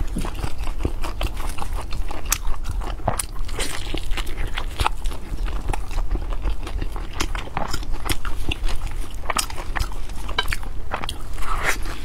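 Close-miked chewing and mouth sounds of a woman eating a steamed buckwheat dumpling: a steady run of small, irregular smacks and clicks.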